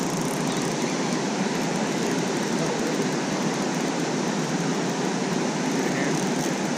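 Steady rushing of water pouring through a concrete spillway.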